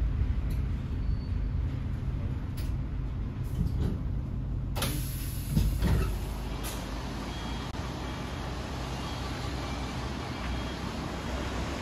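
Bus engine rumbling low and steady, with a sudden burst of compressed-air hiss about five seconds in that lasts about two seconds.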